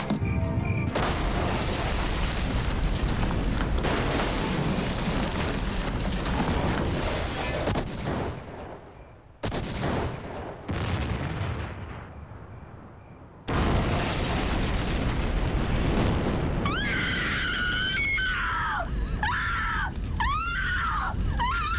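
Boathouse explosion: a loud blast about a second in, then the noise of fire that dies away twice and comes back loud a little past halfway. In the last few seconds a woman screams again and again over the flames.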